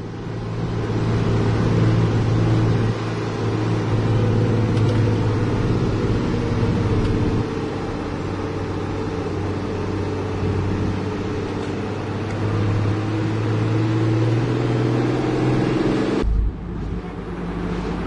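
Isuzu Giga truck's diesel engine running steadily, with an abrupt drop in level near the end.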